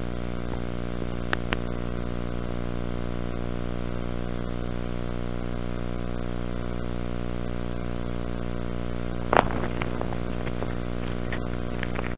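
A steady, even hum with many overtones, unchanging in pitch, broken by a few sharp clicks, the loudest about nine seconds in.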